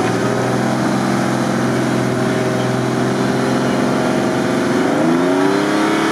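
Modified Lada Niva off-road vehicle's engine running hard under load as it drives through slushy mud, the revs dipping and then climbing about five seconds in as the rear wheel spins and throws mud.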